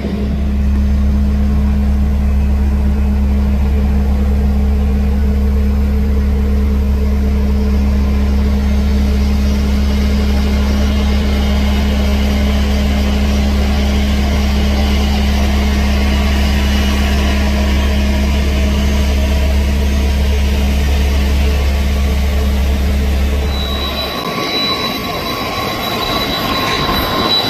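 Jet airliner engines at taxi idle, a loud steady low rumble and hum. Near the end it gives way to a higher steady engine whine.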